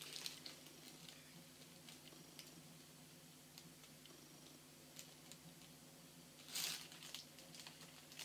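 Quiet handling of shopping items and packaging: a few light clicks and taps, then a brief crinkly rustle about two-thirds of the way in, over a faint steady room hum.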